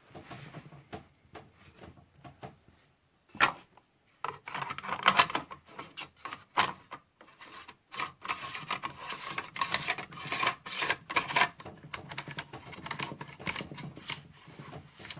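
Hands turning the tool-free bar-and-cover tensioning knob of a Brücke 36 V battery chainsaw, with quick clicking and rattling of the plastic and metal parts as the bar and side plate are shifted and tightened. A sharp knock about three and a half seconds in.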